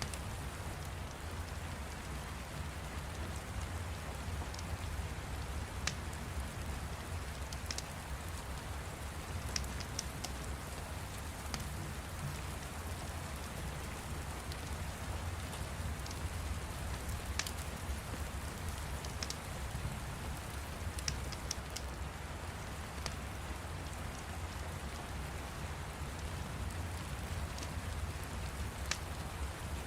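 Steady rain with a low rumble underneath, and scattered sharp crackles of a fire at irregular moments every second or few.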